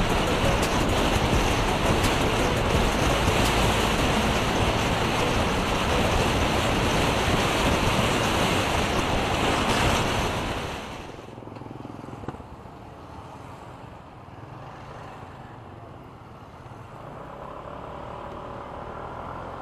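Loud steady rushing noise, like wind on the microphone, that falls away sharply about ten seconds in to a much quieter background.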